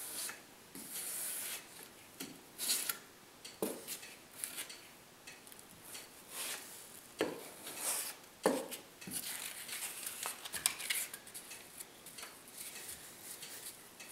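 Plastic spreader scraping contact cement onto the layout base in short, irregular strokes, with the rustle and rub of a grass mat being lifted and pressed down by hand.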